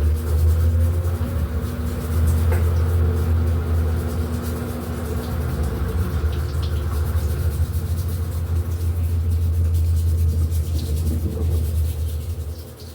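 Electrolux LED14 washing machine running its wash cycle: a steady low motor hum with a few steady tones above it, easing off near the end.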